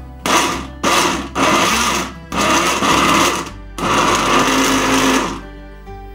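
Countertop glass-jar blender run in about five short bursts, pulsing apple and banana chunks, berries and oat milk into a smoothie; the last burst is the longest and stops near the end.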